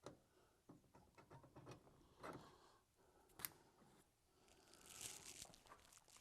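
Faint hand work on a truck door: scattered small clicks and scrapes, one sharper click a little over three seconds in, and a longer scratching near the end.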